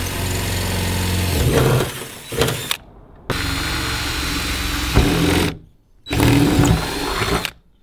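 Cordless drill enlarging holes in the Nissan 350Z's trunk lid to 1/4 inch for rivet nuts, run in three bursts of a couple of seconds each with short pauses between.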